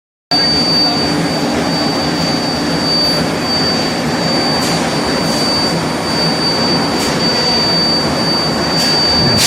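Foundry furnace machinery running with a loud, steady roar and a constant high-pitched whine, broken by a few short hisses and a louder one near the end.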